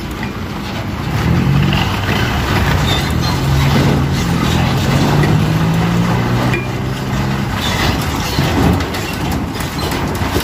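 Diesel truck engine running as the truck passes close by. Its note comes in about a second in, rises a little and holds, then fades out past the middle, over continuous road noise.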